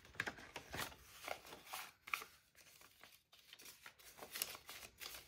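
Paper banknotes rustling and crinkling as they are pulled out of a clear plastic binder pocket and fanned in the hands: faint, irregular rustles and soft ticks.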